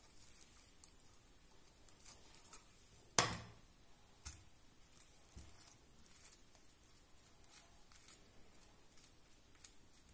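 Wooden spatula spreading soft sour-cream cream in a glass bowl lined with plastic cling film: faint scraping and crinkling of the film, with one sharp knock about three seconds in and a lighter one a second later.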